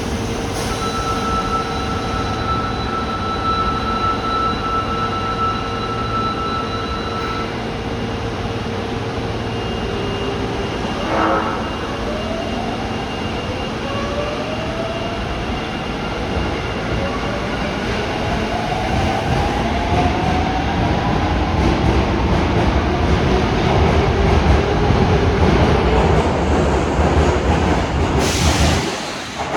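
Osaka Metro Tanimachi Line subway train pulling out of the platform. Its traction-motor whine climbs in pitch as it accelerates, over wheel and rail noise that grows louder, then falls off sharply near the end.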